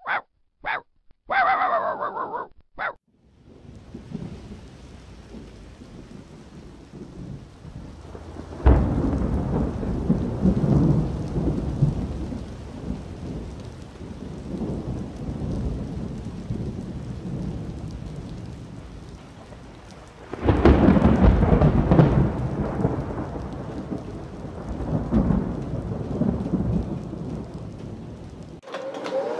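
A thunderstorm: steady rain with two loud claps of thunder, one about nine seconds in and one about twenty seconds in, each rumbling and fading slowly. A few short pitched sounds come before the rain starts, and the storm cuts off suddenly near the end.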